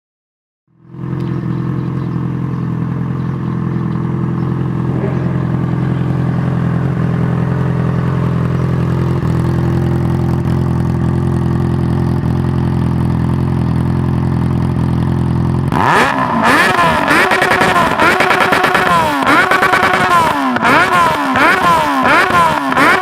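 Yamaha XJ6 inline-four engine, breathing through an aftermarket sport exhaust, idling steadily with a loud, even note. Near the end it is revved in a quick series of throttle blips, the pitch rising and falling each time.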